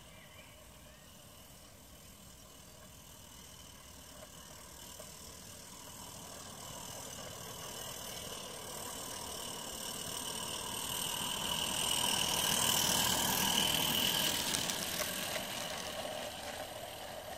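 Regner Vincent live-steam garden-railway locomotive running with a goods train, its sound growing steadily louder as it approaches, loudest about two-thirds of the way through, then easing a little.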